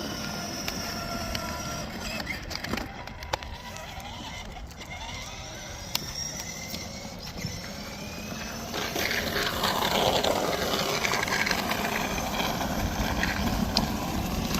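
A 12-volt kids' ride-on car driving, its electric drive motors and plastic wheels running over the ground as a steady rumble with a few clicks. The sound grows louder and noisier about nine seconds in.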